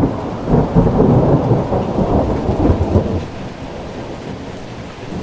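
Thunderstorm sound effect: thunder rumbling over rain, the rumble easing off after about three seconds.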